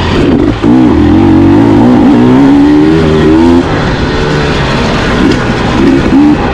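Dirt bike engine revving up and down as it is ridden, its pitch rising and falling with the throttle and dropping sharply a little past halfway through.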